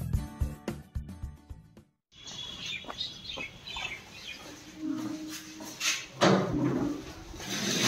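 Background music with a steady beat fades out about two seconds in. Then birds chirp while sandalled footsteps scuff across a concrete yard.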